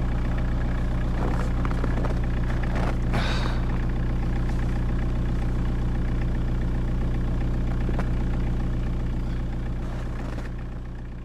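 Steady drone of a vehicle's engine running at constant speed, a stack of even engine tones under a noisy rumble; it fades out near the end.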